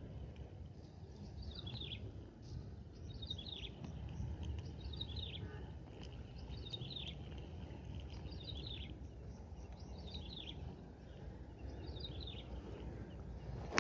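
Strong wind buffeting the microphone with a steady low rumble, while a bird repeats a short, high, falling call about every second and a half to two seconds, eight times over.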